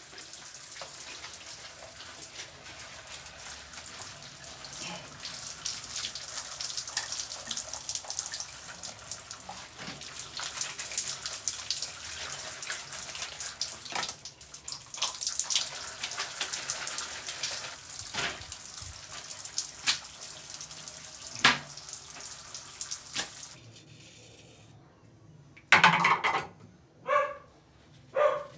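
Steady rush of running water that stops suddenly after about 23 seconds. Near the end, a dog barks a few times about a second apart.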